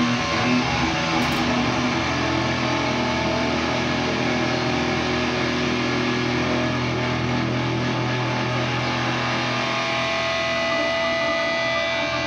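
Bass and guitar playing improvised music: a dense drone of held notes. Higher steady tones come in about ten seconds in.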